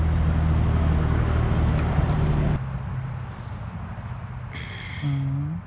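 Electric hair clippers buzzing steadily as they shave fur from a cat's throat, cutting off abruptly about two and a half seconds in. A short, low vocal sound that rises in pitch follows near the end.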